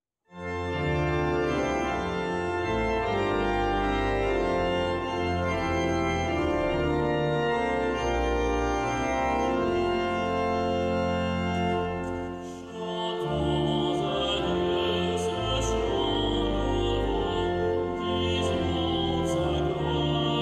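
Church organ playing sustained chords. After a brief dip about twelve seconds in, a solo voice starts singing over the organ.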